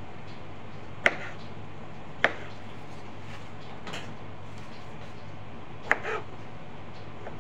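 A few sharp taps and knocks on a cutting board as cherry tomatoes are handled and cut. Clear ones come about a second in, at two seconds, and near six seconds, with a fainter tap around four seconds. A steady low hum runs underneath.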